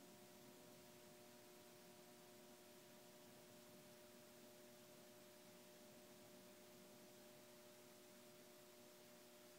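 Near silence with a faint, steady electrical hum of a few high tones over hiss.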